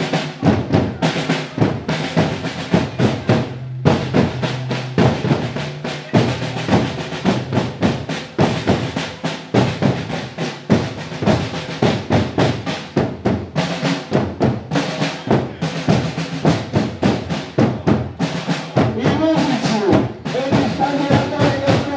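Marching drums of a historical parade group playing a rapid, even beat with snare rolls and bass-drum strokes; a few pitched notes join near the end.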